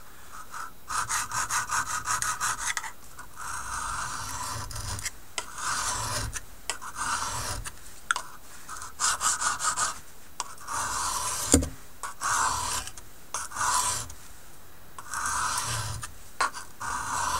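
High carbon steel knife blade stroked back and forth across an oiled honing stone, scraping: runs of quick short strokes near the start and again about two-thirds of the way through, longer strokes in between. A single sharp click about two-thirds of the way in.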